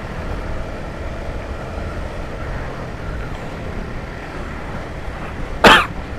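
Steady riding noise from a Honda CBR150R motorcycle at speed: engine and wind on the rider's microphone. One short, loud vocal sound from the rider breaks through near the end.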